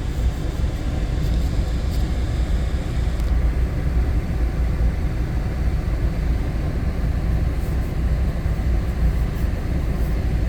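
Heat gun blowing steadily, a continuous rushing noise heavy in the low end, used to cure vinyl repair compound on a console lid; the fine upper hiss thins about three seconds in.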